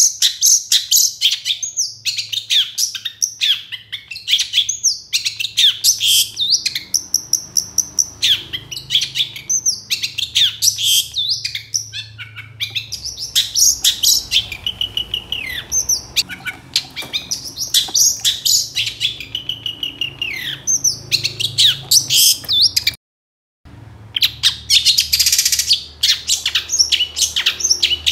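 Long-tailed shrike (cendet) in full song: a fast, unbroken run of varied high chirps, trills and quick rising and falling notes, with a harsher scratchy stretch shortly after a brief gap near the end.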